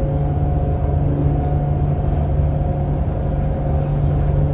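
Electric hydrofoil yacht running at speed on its foils: a steady low rumble with a constant hum from the electric drive.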